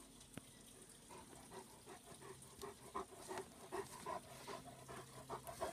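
German shepherd panting, a quick run of short even breaths that starts about a second in.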